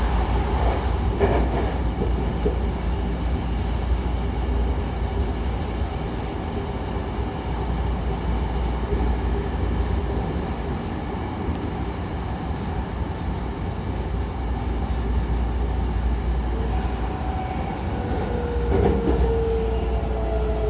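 Hankyu train running between stations, heard from inside the car: a steady low rumble of wheels on rail. Near the end a thin whine falls slowly in pitch as the train starts to slow.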